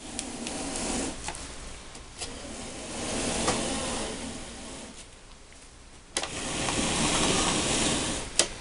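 Motorcycle helmet being turned by hand on its tape-wrapped stand, its shell scraping and rubbing against the stand in three stretches of rough noise, with a few knocks as it is shifted and set down.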